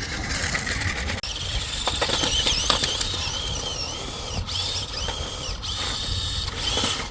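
Small electric motors of toy RC monster trucks whining, the pitch rising and falling again and again as the throttle is worked, over a steady low rumble.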